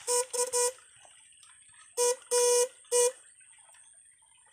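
Electric fishing device buzzing in short bursts of one steady pitch as it is switched on and off with its pole in the water: three quick buzzes, then three more about two seconds in, the fifth one a little longer.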